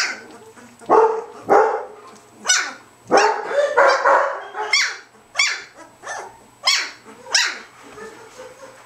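Old German Shepherd dogs barking: a string of about a dozen short, sharp barks, some falling in pitch, that stops shortly before the end.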